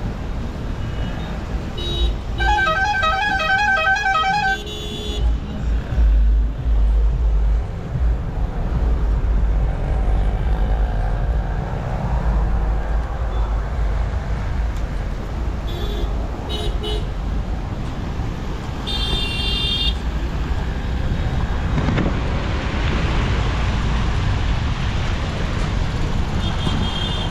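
Road traffic over a steady low rumble, with vehicle horns: a long pulsing, warbling horn a couple of seconds in, then shorter honks around the middle and once near the end.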